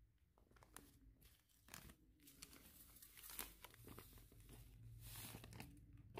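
Plastic packet of cassava breadcrumbs crinkling and crackling as it is handled and the crumbs are poured out of it into a metal bowl.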